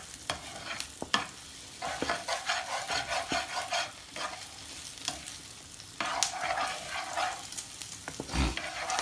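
A wooden spoon stirring coconut-milk curry in an aluminium pot, with scattered knocks of the spoon against the pot and two longer stretches of stirring about two and six seconds in; a dull thump near the end. The gravy is kept moving so the coconut milk does not split.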